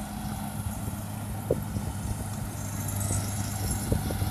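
Rice combine harvester's engine running steadily, a constant low hum, with a few short faint knocks over it.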